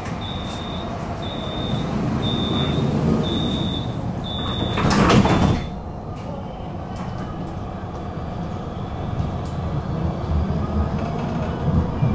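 Tram door-closing warning: five short high beeps about one a second, then a loud burst of noise as the doors slide shut, followed by the tram's low running rumble.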